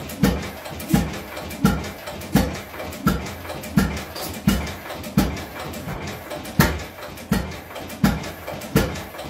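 6 HP International Harvester Famous hit-and-miss engine just started and running cold, its exhaust beats coming as regular, even knocks about every 0.7 seconds.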